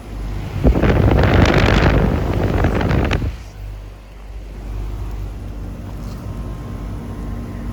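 Outdoor air-conditioner condenser units running. A loud rush of air noise hits the microphone for the first few seconds, then gives way to a steady hum with several held tones from the compressor and fan.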